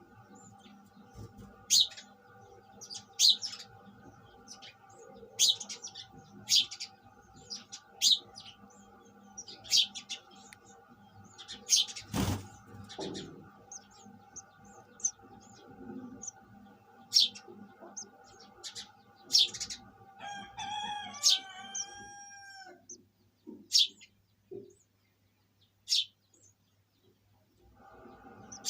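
Sparrow chirping repeatedly, short sharp chirps every second or two. About two-thirds of the way through comes a longer call that falls in pitch, and a single sharp click sounds about 12 seconds in. A steady background hum drops out near the end.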